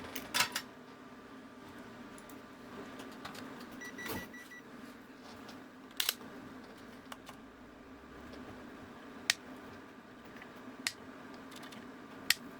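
Occasional sharp clicks and taps of small tools being handled on an electronics workbench, over a faint steady hum, with a brief faint beep about four seconds in.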